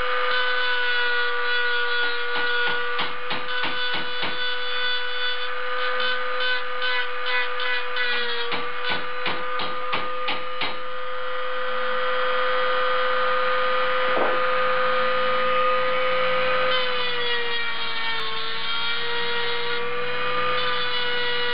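High-speed electric rotary tool running with a steady whine, its small grinding stone porting the cast-iron center iron of a Mazda 13B rotary engine. The pitch sags briefly when the stone is pressed into the metal, and a run of quick scratchy strokes comes in the first half.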